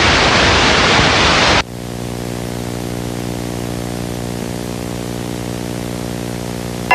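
Loud broadcast static hiss, as when a broadcast signal breaks off, cuts out sharply after about a second and a half. A steady, quieter low buzzing drone follows.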